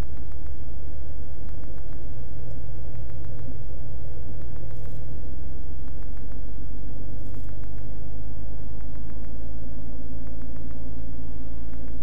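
Beechcraft Bonanza F33's flat-six piston engine idling while the plane taxis after landing, heard as a steady low drone inside the cabin. The engine note shifts slightly about halfway through.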